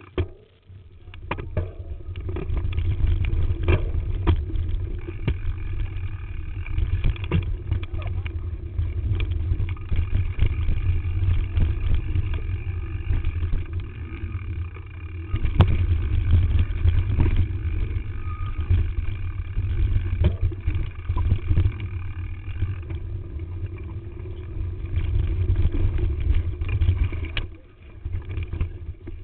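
Wind rumbling over a bike-mounted camera's microphone as a mountain bike is ridden along a rough dirt trail, with the bike rattling and clattering over the bumps throughout.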